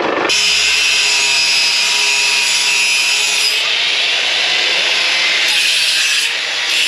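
Power tool grinding a 304 stainless steel flat strip: a loud, steady, high-pitched grinding hiss that sets in sharply just after the start, its top edge easing off for a couple of seconds in the middle.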